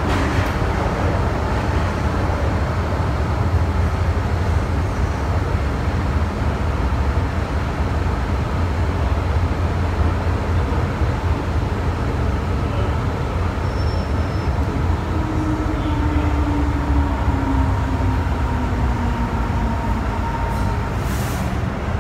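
Metro-Cammell electric multiple unit heard from inside the carriage: a steady low rumble of wheels on rail and running gear. In the second half a whine slowly falls in pitch as the train slows into the station.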